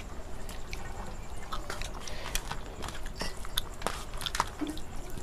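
People eating rice by hand from steel plates: chewing and mouth sounds, with irregular light clicks and scrapes of fingers against the plates.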